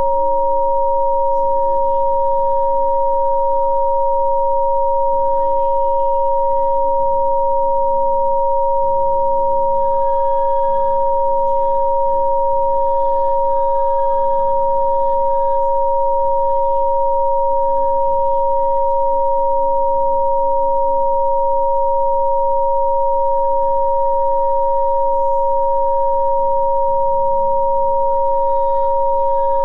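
Two steady pure electronic tones, one a little above 500 Hz and one near 1 kHz, held unchanging throughout: a Rife frequency-therapy tone track. Soft music changes chords faintly underneath.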